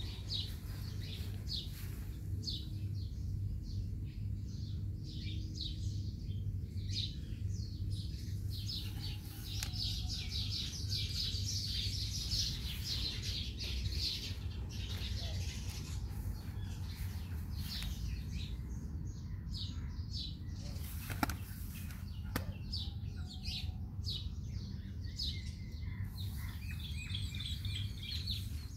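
Small birds chirping in quick, repeated calls, thickest around the middle, over a steady low background rumble. Two short clicks come about three-quarters of the way through.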